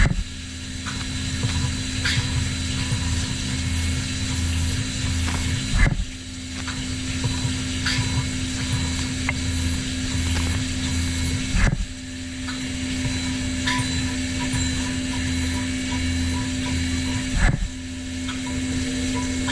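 CNC milling machine cutting a copper bus bar: a steady spindle-and-cutting tone with a low hum, broken by a short sharp knock and a brief drop about every six seconds.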